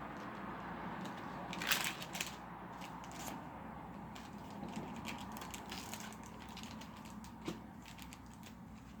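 Yu-Gi-Oh trading cards and foil booster-pack wrappers being handled: faint rustling and crinkling with scattered light clicks, the loudest crackle about two seconds in.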